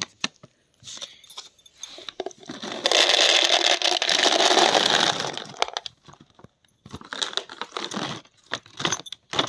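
Almonds poured from a plastic packet into a plastic storage container: a dense rattle of nuts striking the plastic for about two and a half seconds, with packet rustling and scattered clicks before and after.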